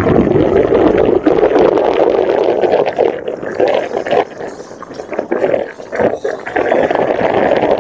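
Wind buffeting the microphone, with water splashing and lapping against the boat's hull; it eases and turns more uneven about three seconds in.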